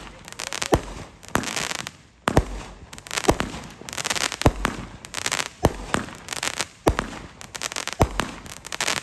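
Fireworks going off: a string of sharp bangs about once every half second to a second, with crackling between them.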